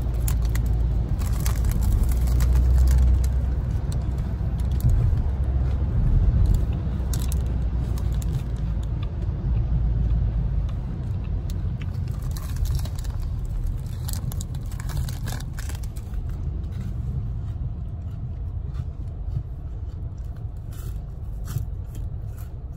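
A low, steady rumble with scattered short scrapes and rustles of handling. The rumble is loudest in the first few seconds.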